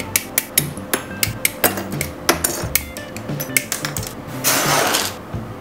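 Hobby side cutters snipping parts off a plastic model-kit runner: an uneven run of sharp clicks, two or three a second, over background music. A short burst of hiss comes about four and a half seconds in.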